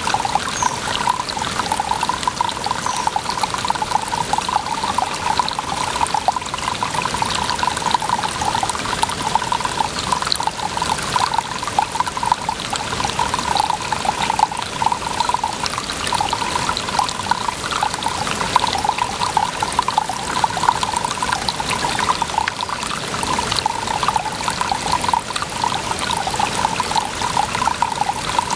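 Running water trickling and splashing in a steady, unbroken pour.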